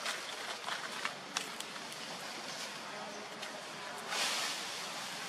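Dry leaf litter rustling and crackling as monkeys move over it, with several short crackles in the first couple of seconds and a longer rustle about four seconds in, over a steady outdoor hiss.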